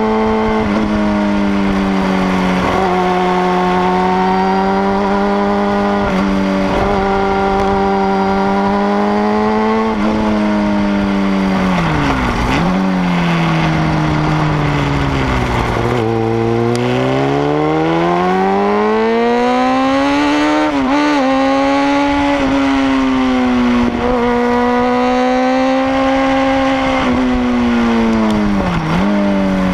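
Sport motorcycle engine running hard under changing throttle. Its pitch holds steady, sinks low as the bike slows about halfway through, then climbs again, with brief quick dips in pitch twice later on.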